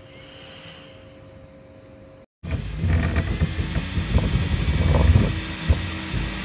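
Faint steady hum from a CNC laser engraver at first; after a cut about two seconds in, a much louder rough rumbling machine noise with irregular crackles as a 15 W blue diode laser burns into an acrylic plate.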